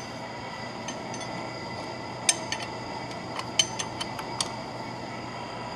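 Several sharp metallic clinks, scattered mostly through the middle, of a steel wrench knocking against the nut and clamp of a lathe steady rest as it is tightened, over a steady shop hum.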